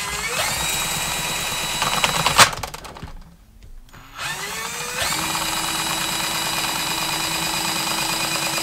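Ryobi One+ 18V cordless drain auger motor spinning up with a rising whine and running as the auto-feed pushes the cable out of the drum. About two and a half seconds in it stops with a sharp click and winds down; a second and a half later it starts again and runs steadily.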